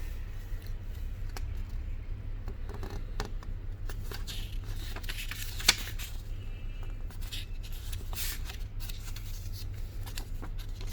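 Paper rustling and soft clicks as the phone's printed user manual is handled and its pages turned, with one sharper click a little past halfway. A steady low hum runs underneath.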